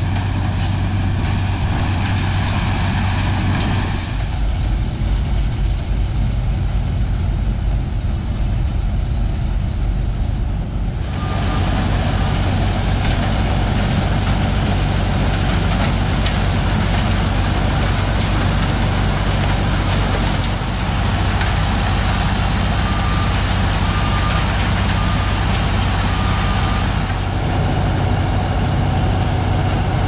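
A White 1210 corn sheller and its elevator running steadily with a tractor engine humming, loud and continuous. A backup alarm beeps in short runs about a third of the way in and again near three-quarters of the way through.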